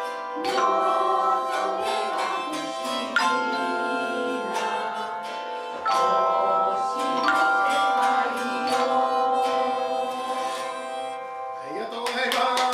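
Tone chimes ringing sustained notes of a slow melody, a new chime struck every second or two, while a group of voices sings along.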